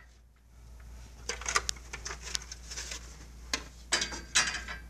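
Plastic anti-condensation cap being fitted into an infrared barrier tower's side rails: a series of light clicks and knocks as it is positioned and clicked into place.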